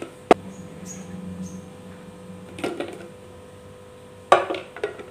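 Hard plastic clicking and knocking as the pink lid and clear plastic bowl of a small electric food chopper are handled and fitted together: one sharp click about a third of a second in, then short clattering knocks near three seconds and again near the end.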